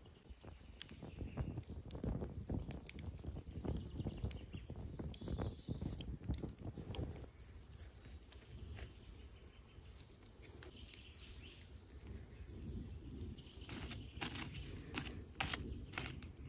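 Wood fire and embers crackling, with irregular light clicks and knocks from sticks and skewers handled over the coals; a denser run of sharp clicks near the end as the coals are poked with a stick.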